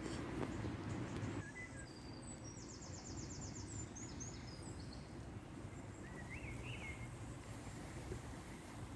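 Faint songbird calls: a quick trill of high repeated notes a few seconds in, then a couple of short chirps later, over a steady low rumble.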